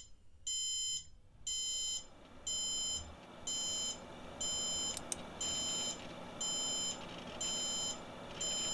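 Electronic alarm beeping: a high, steady beep about half a second long, repeating once a second, like a digital alarm clock.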